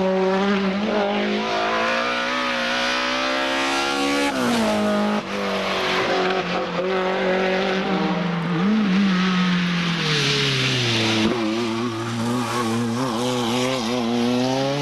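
Rally car engines at full throttle on a stage, pitch climbing under acceleration and dropping sharply at gear changes and braking. A short hiss of tyre squeal comes about ten seconds in.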